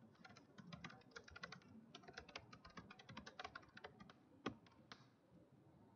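Faint computer keyboard typing: a quick, uneven run of key clicks, with one louder keystroke about four and a half seconds in, after which the typing stops.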